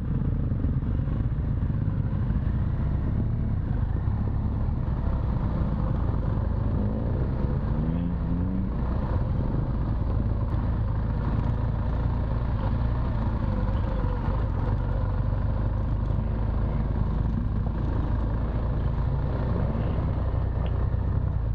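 BMW R1200 GS Adventure's boxer-twin engine running steadily at low trail speed, heard from on board, with a brief rise in revs about eight seconds in.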